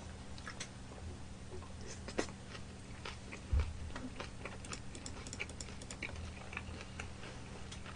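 Close-up chewing of a mouthful of crispy fried chicken and salad greens: faint, scattered crunching clicks, with one low thump about three and a half seconds in.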